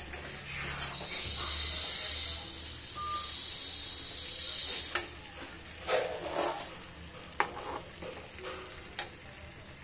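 Black pomfret pieces frying in oily masala in a kadhai, sizzling loudly for the first few seconds. Then a metal spatula scrapes and knocks against the pan a few times as the fish is turned.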